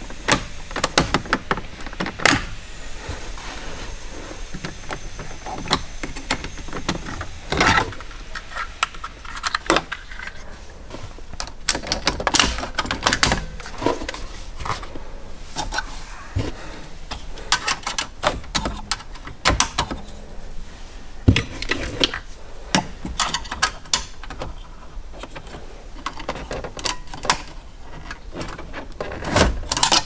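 Irregular clicks, taps and clatter of plastic and metal as an aftermarket single-DIN car stereo is worked loose from the dashboard: its detachable faceplate comes off and thin improvised tools are pushed into the release slots beside it.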